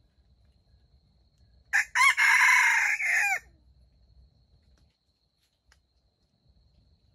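Red junglefowl rooster crowing once: a short, clipped crow of about a second and a half, ending with a drop in pitch.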